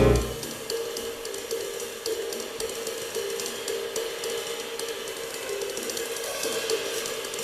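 Jazz drum kit played alone and softly, mostly cymbal and hi-hat strokes, as the piano and bass fall silent, heard through a cassette recording of an FM broadcast.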